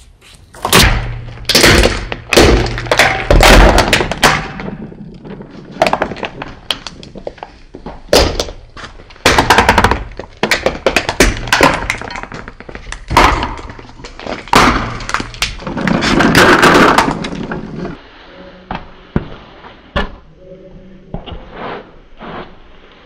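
Hard plastic toys and candy balls being crushed under a rolling car tyre: a long run of sharp cracks, snaps and crunches, thinning out to scattered small clicks in the last few seconds.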